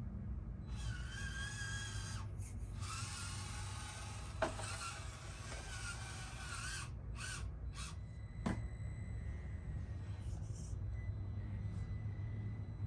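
Small RC crawler truck's electric motor and gearbox whining in several spurts as it drives, the pitch wavering with throttle, then quieter running in the second half. Two sharp clicks are heard, one near the middle and one about two-thirds of the way through.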